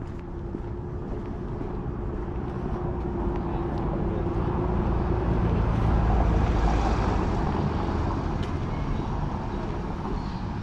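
A motor vehicle passing, its engine and tyre noise growing slowly louder to a peak about six seconds in and then fading.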